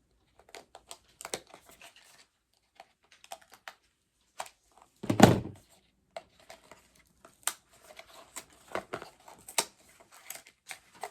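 Scissors snipping and hands working at a sealed mystery pin box's packaging: a string of small clicks, snips and crinkles, with one loud thump about five seconds in.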